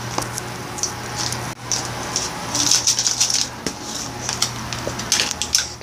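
Handling noise: short bursts of crackling rustle and a few clicks, over a low steady hum.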